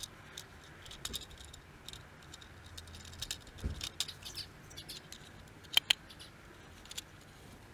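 Light clicks, taps and scrapes of a car's window master switch and its small parts being handled and fitted back together by hand, with a sharper double click about six seconds in.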